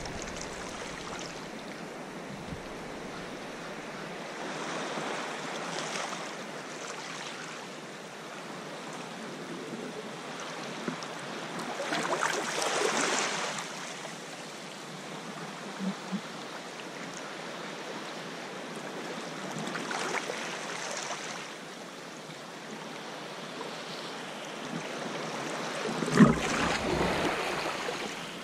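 Sea water sloshing and lapping around a sea kayak paddled close along rock cliffs, with surges of surf washing against the rocks about every six to eight seconds; the sharpest splash comes near the end.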